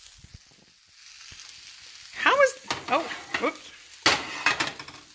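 Potato and turkey-sausage hash sizzling in a hot metal pan just off the heat, with a steady hiss that starts about a second in. A voice is heard briefly in the middle, and two sharp knocks come near the end.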